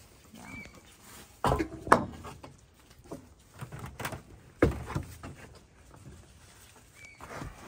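Scattered knocks and thumps, with a few sharp ones standing out, as a person moves about on wooden decking and handles a long-handled cleaning tool.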